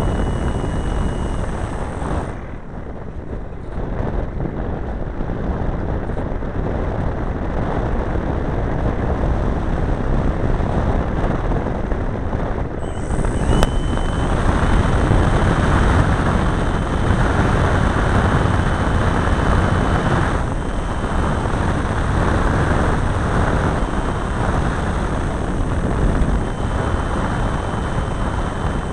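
Quaker RC model airplane's engine running with airflow rushing over the onboard camera's microphone as it flies low, growing louder a little under halfway through, with a single sharp click just after that.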